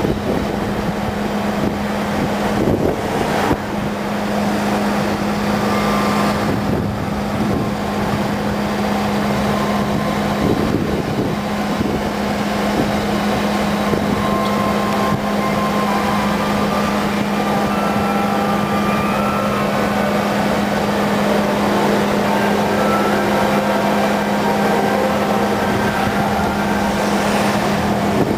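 Car driving slowly through town streets: steady road and engine noise with a constant low hum.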